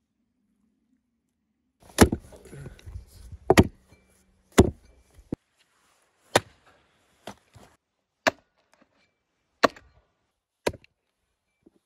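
A hatchet chopping into a cow's head on a wooden stump, splitting the skull. About seven heavy blows, one every second or so, begin about two seconds in, with a few lighter knocks between them.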